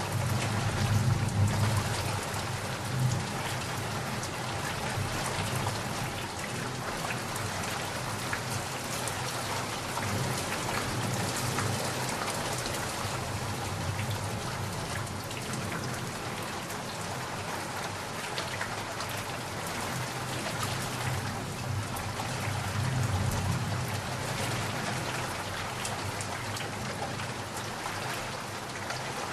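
Steady rain falling, with low rumbles of thunder swelling in about a second in and again near the end.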